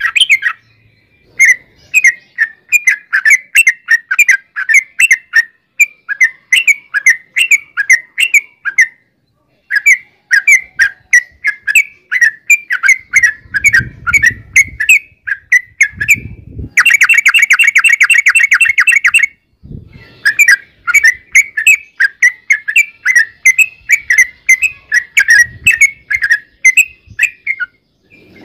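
Yellow-vented bulbul singing long, fast runs of repeated chattering notes, about four a second, broken by brief pauses. The densest, loudest run comes about two-thirds of the way through.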